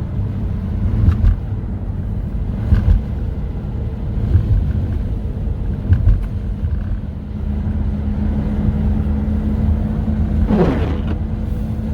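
Car driving, a steady low road and engine rumble with a soft knock about every one and a half seconds in the first half. A short sound falls in pitch near the end.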